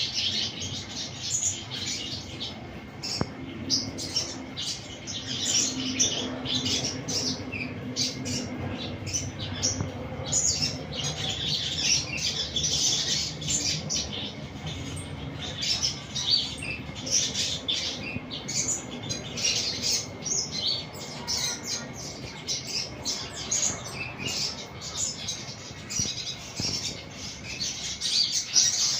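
Sunbird chirping and twittering in a fast, continuous run of short high-pitched notes, over a faint low hum.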